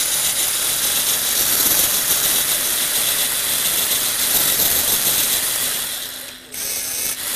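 Lego Technic plastic gearbox running, driven by Lego Mindstorms NXT motors: a steady, dense clatter of plastic gears meshing and spinning. The sound dips briefly about six and a half seconds in, then picks up again.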